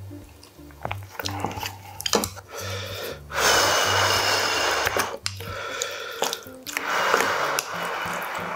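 A wooden spoon clicking and scraping in a glass bowl of rice and kimchi stew, then eating noises: a long loud slurp from the spoon about a third of the way in and a shorter one near the end. Soft background music plays underneath.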